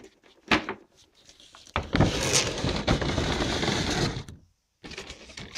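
Figure box packaging being handled: a sharp tap, then about two and a half seconds of loud scraping and rustling of cardboard and plastic that stops abruptly.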